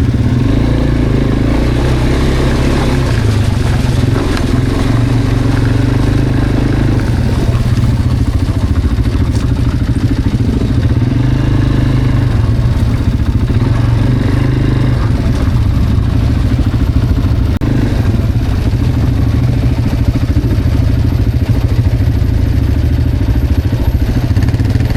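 Quad bike (ATV) engine running as it is ridden, its note shifting up and down a little.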